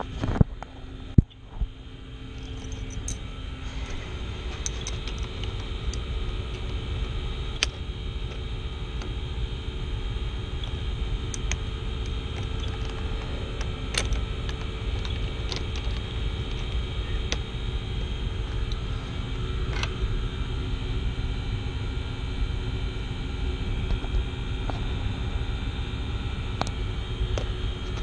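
Steady low rumble of running HVAC machinery, with scattered light clicks and taps from metal tools being handled.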